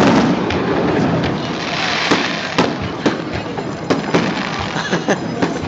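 Aerial fireworks going off: a loud boom at the start, a crackling hiss about two seconds in, then a string of sharp bangs about every half second.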